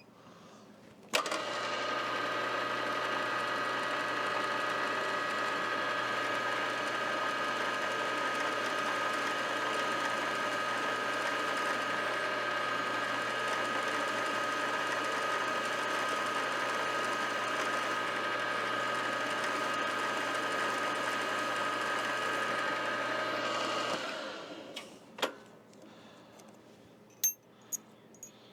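A milling machine's motor and spindle switched on with a click, running steadily with a constant whine and hum for about 23 seconds, then switched off and winding down, followed by a single click.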